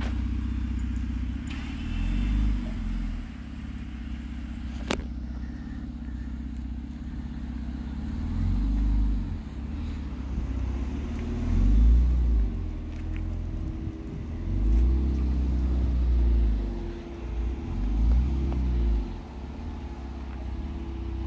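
2014 Jeep Cherokee Trailhawk's engine running through a newly fitted MagnaFlow performance exhaust, a low rumble that swells and falls several times as the throttle is opened and eased off, loudest about midway.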